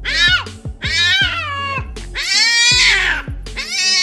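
A domestic cat yowling at the sight of a dog, several long wailing calls in a row that rise and fall in pitch. Background music with a steady beat plays underneath.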